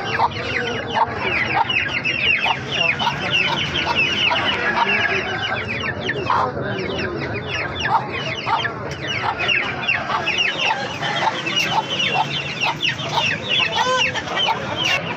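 Aseel chickens, a hen with half-grown chicks among them, clucking and calling in a dense, unbroken stream of short high calls, several a second.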